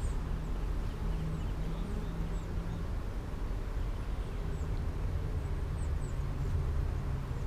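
Steady low outdoor rumble with a faint drone, while small birds give short high chirps every second or so.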